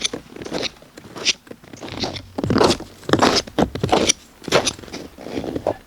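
Footsteps crunching in snow, about two steps a second, fairly even.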